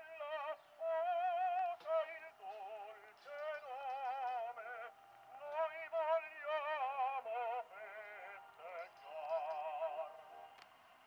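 A 78 rpm record playing on a 1919 Pathé Frères Model XXI wind-up acoustic phonograph through its wooden horn: a high melody sung with strong vibrato. It sounds thin, with no bass.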